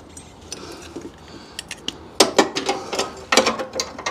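Irregular metallic clicks and clinks of bolts and hand tools being handled as a Jeep TJ's front grille is bolted back on. The loudest clusters come about two seconds in and again just past three seconds.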